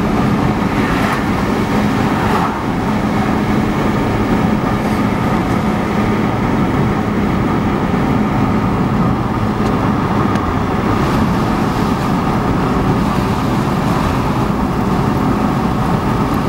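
Steady drone of a car driving at speed, heard inside the cabin: tyre, road and engine noise, with a few faint ticks.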